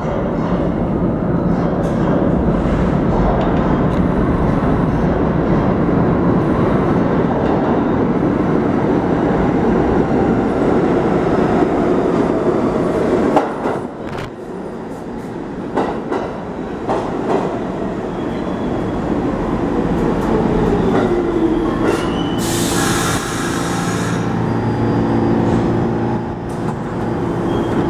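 R46 subway train running into the station with a heavy rumble of wheels on rails, then slowing with a falling whine. A short hiss sounds as it comes to a stop, followed by a steady hum while it stands at the platform.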